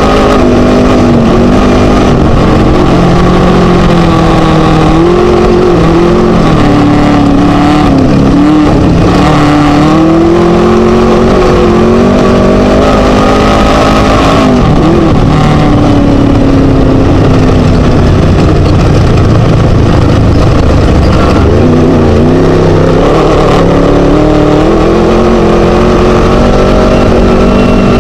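Onboard sound of a Chenowth DR2 class 1 desert race buggy with a Scat engine, run hard over rough terrain. It is very loud, with the engine pitch rising and falling again and again as the throttle opens and closes, over constant rattling and road noise.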